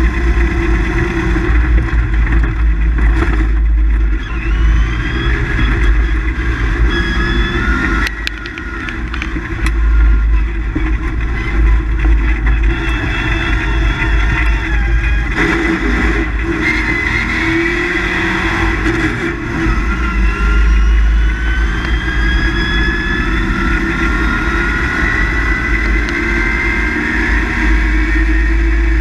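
Rally car engine heard from inside the cabin at stage pace, revving up through the gears in repeated rising sweeps. The engine briefly lifts off about eight seconds in before pulling hard again.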